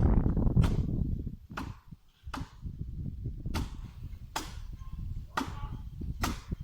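Chopping blows into coconut palm wood: about seven sharp strikes, roughly one a second, over a low rumble.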